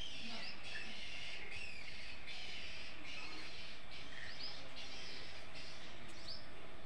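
Birds calling: a steady chorus of chirps, with short rising calls about half a second in and again near the end, over a steady background hiss.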